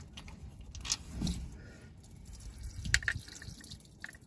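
Faint handling noises from work on a coolant temperature sensor at its port in the engine: a few short clicks and light knocks over a low rumble.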